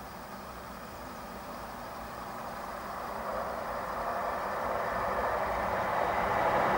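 Diesel passenger train approaching a level crossing, its rumble growing steadily louder from about two seconds in.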